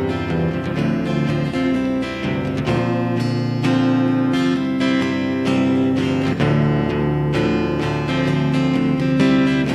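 Acoustic guitar strummed steadily in an instrumental passage, full chords with changing low notes and no singing.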